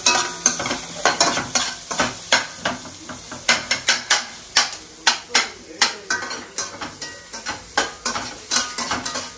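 Perforated metal ladle scraping and clinking against a metal kadai as chopped onions and garlic are stirred, frying in butter with a steady sizzle. The strokes come irregularly, a couple each second.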